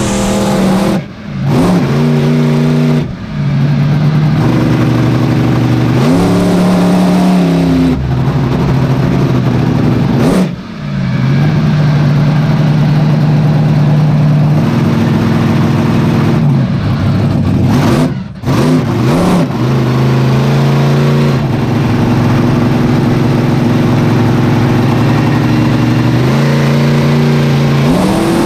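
A 1500 hp monster truck's engine heard from inside its cab, running hard at high revs. It revs up and down repeatedly and drops off sharply four times as the throttle is lifted, then climbs again.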